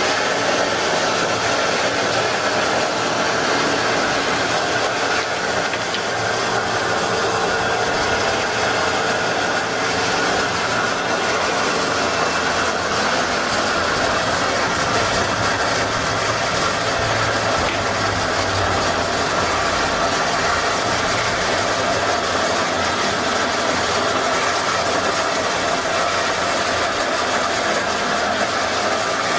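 Lamborghini Countach's V12 engine idling steadily.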